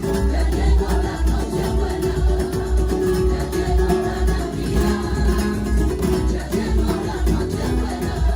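Flamenco-style music with guitar and a steady beat.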